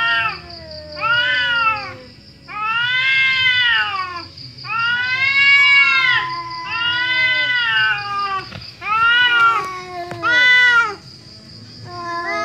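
Two domestic cats, a black-and-white tuxedo and a white-and-grey cat, caterwauling at each other in a fighting standoff: a string of long, drawn-out yowls, each rising then falling in pitch, with short pauses between. A faint steady high-pitched buzz runs underneath.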